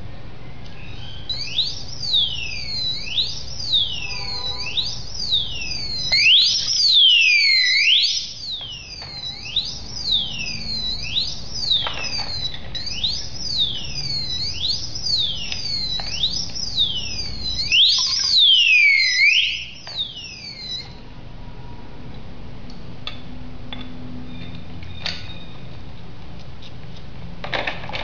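Alarm padlock's built-in electronic siren sounding: a shrill warbling tone that swoops up and down over and over, for about twenty seconds, then cuts off. A few faint clicks follow.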